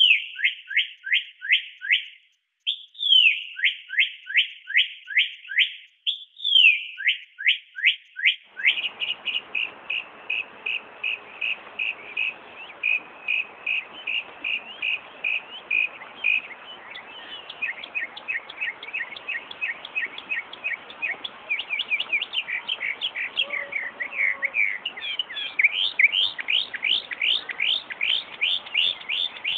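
Northern mockingbird singing: runs of rapid repeated notes, about five a second, each note sweeping down in pitch. Each kind of note is repeated many times before the bird switches to another. The first three runs are separated by short pauses, then the song goes on without a break over a steady background hiss.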